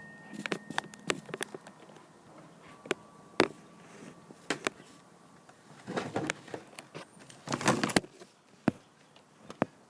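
Irregular clicks, taps and knocks of objects being handled, bunched about six seconds in and again near eight seconds.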